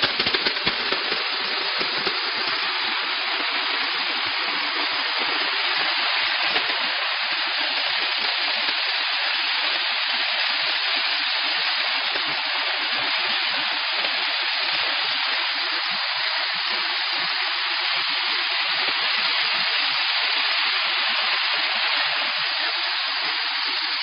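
Steady hiss of a jet of steam blasting from the nozzle of a steam car-wash machine's spray lance.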